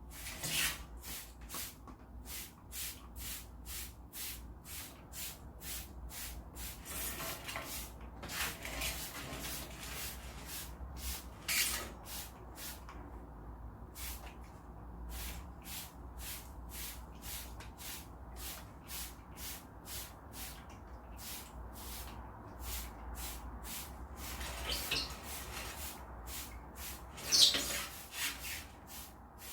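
Hand spray bottle misting water, a short hissing squirt about twice a second, with a few louder pulls.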